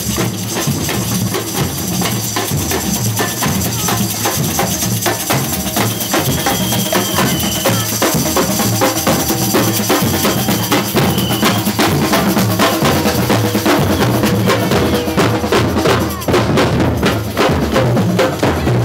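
A drum band playing, with many drum strokes in a steady rhythm over music.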